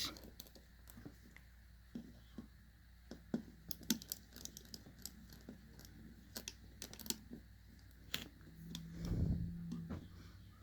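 Scattered light clicks and ticks of a small screwdriver and tiny screws being worked back into a smartphone's frame, with a louder, duller handling bump about nine seconds in.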